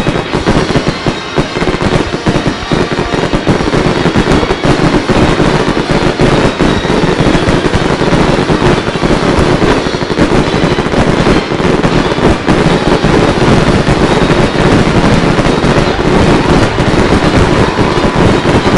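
Aerial fireworks going off in a dense, continuous barrage: rapid overlapping bangs and crackling shells with no pause, growing more intense after the first few seconds.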